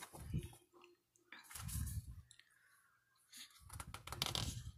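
Sheets of a 6x6 scrapbook paper pad being handled and turned over by hand: faint paper rustling and small clicks, with soft low thumps in three short spells.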